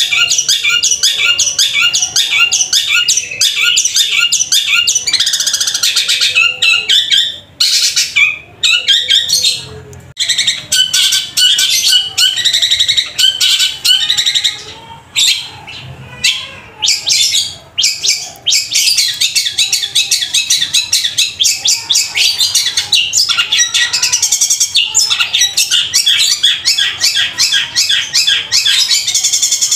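Long-tailed shrike (cendet) singing loudly: long runs of rapid, harsh chirps imitating a tree sparrow, several a second, with a few short breaks around the middle.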